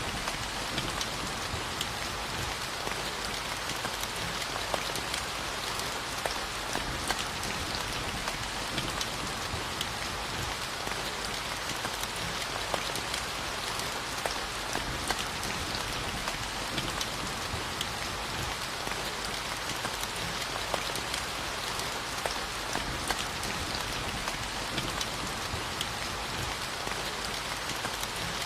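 Steady rainfall: an even, dense hiss with many individual drops ticking through it.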